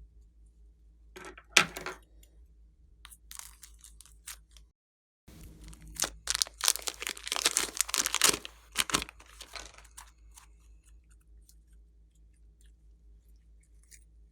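Glossy slime being stretched and squeezed by hand, crackling and popping as air pockets burst: a short burst near the start, another a couple of seconds later, and a dense stretch of crackles in the middle that thins to scattered clicks. A faint steady low hum runs underneath.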